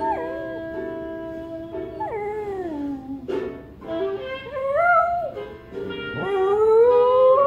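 Spaniel howling along to music playing from a television. There are four pitch-sliding howls over the music's held notes: a short falling one at the start, a falling one about two seconds in, a rising, wavering one around four to five seconds, and a long rising howl near the end that is the loudest.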